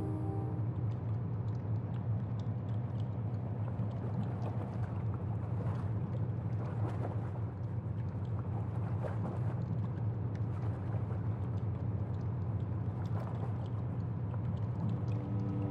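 Underwater ambience from a film soundtrack: a steady low rumble with faint scattered bubbling and small pops.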